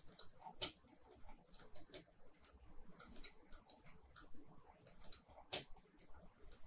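Faint, irregular clicking of a computer mouse and keyboard, several clicks a second, as spline vertices are selected and dragged into place.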